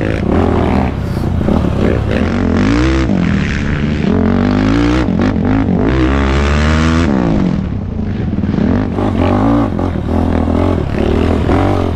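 Yamaha YFZ450R sport quad's single-cylinder four-stroke engine, fitted with an aftermarket Rossier full exhaust, ridden on a trail. The engine revs up and down with the throttle, its pitch rising and falling several times.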